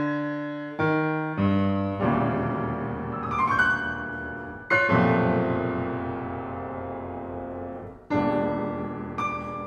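Grand piano played four hands: a few chords struck in quick succession in the first two seconds and a short run of high notes, then a large chord about halfway through left to ring and slowly fade, and another struck near the end.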